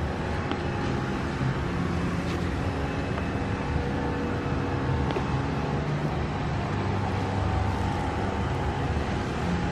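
Steady outdoor city din with a continuous low rumble and faint hum, carrying distant crowd cheering and encouragement for marathon runners.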